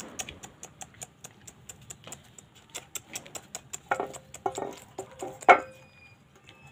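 Weaning puppies licking and scrabbling around feet and an enamel food tray: rapid light clicks and taps, with short puppy whimpers about four seconds in and a louder yelp about five and a half seconds in.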